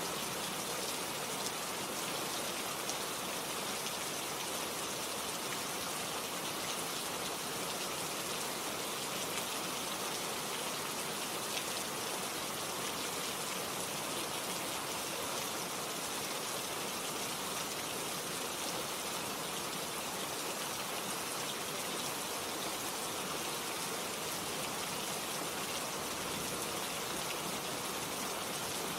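Steady rain falling, an even, unbroken hiss that does not change.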